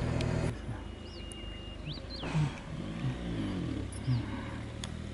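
Outdoor ambience: a steady low engine hum that cuts away about half a second in and comes back near the end, with a few short bird chirps in between.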